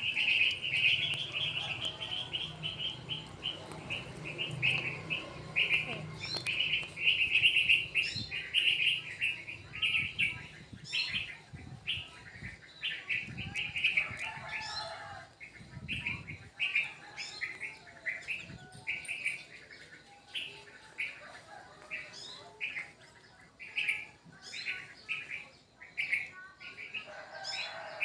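A bird chirping over and over in high, short notes, a couple of times a second.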